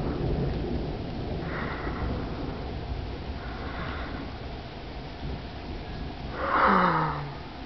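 Low rumble of thunder rolling away and fading. A person breathes close to the microphone, and about six and a half seconds in gives a short breathy sigh that falls in pitch, the loudest sound here.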